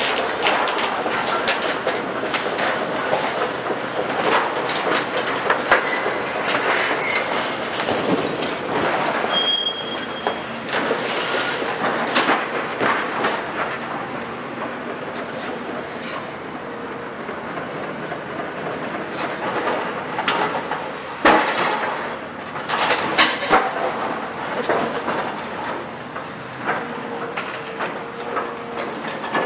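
Demolition of a steel-framed hall by a CAT 340 Next Gen long-front excavator: steady grinding and scraping of metal with frequent clanks and knocks, the sharpest about 21 seconds in, and a few brief high metal squeals.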